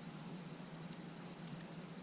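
Quiet steady background hiss with a low hum, broken by two faint light ticks about one and one and a half seconds in.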